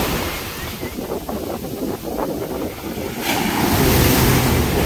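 Big waves from a rough sea breaking on the shore, the surf washing in with a loud fresh surge about three seconds in. Wind buffets the microphone throughout.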